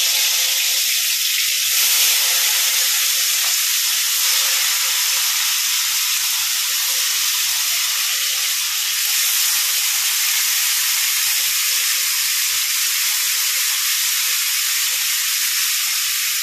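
Yogurt-marinated mutton sizzling loudly in hot oil in a kadai, a steady frying hiss as pieces are dropped in by hand.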